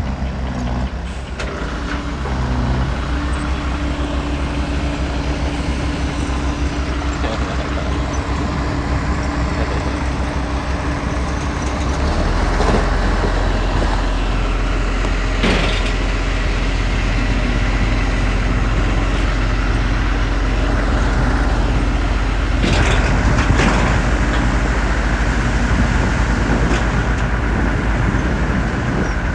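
Heavy diesel earthmoving machinery running steadily, its engine labouring harder from about twelve seconds in. A few short sharp noises stand out over it.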